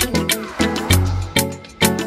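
Upbeat instrumental background music with a steady beat and a bouncing bass line, about two beats a second.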